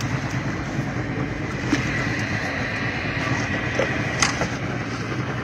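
Boat motor running steadily, with two short sharp knocks about two and four seconds in.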